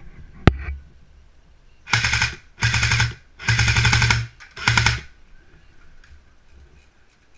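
Airsoft M4 rifle firing four short full-auto bursts in quick succession, each a rapid rattling string of shots under a second long. A single sharp click comes about half a second in.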